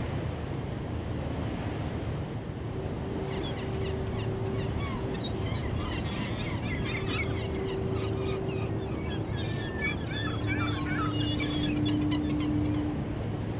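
Sea ambience: a steady rumble of surf and wind, with many birds chirping and calling from about three seconds in until near the end. A few long, steady low tones sound faintly through it.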